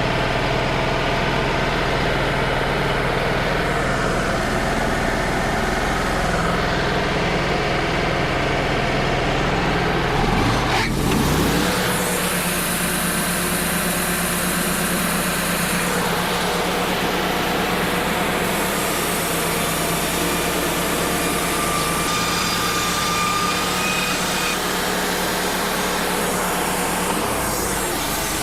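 Wood-Mizer LT35 portable sawmill running: its engine hums steadily, then about eleven seconds in there is a clunk and the engine note steadies higher. From then on the band blade cuts along an air-dried white pine board, adding a steady high hiss over the engine.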